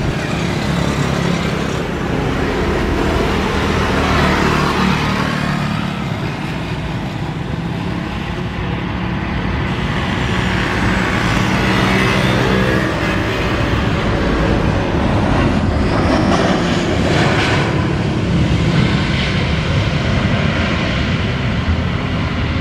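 Jet engines of a Boeing 737 airliner running steadily on final approach as it passes close by. About halfway through it touches down, and the roar carries on and swells a little through the landing roll.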